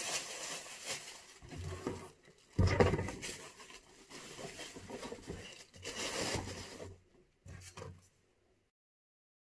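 Light tissue paper and masking tape being handled against the inside of a cardboard box, in uneven bursts of crinkling rustle and scraping, the loudest about three seconds in. The sound cuts off abruptly about eight seconds in.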